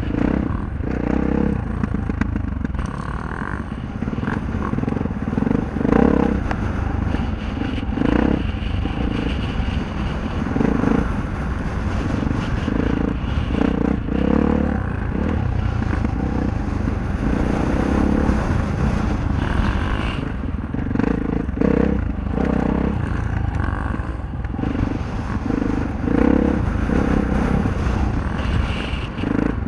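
Dirt bike engine heard from the rider's own bike at low speed through tight turns, the throttle opened and closed every second or two, with louder surges on each opening.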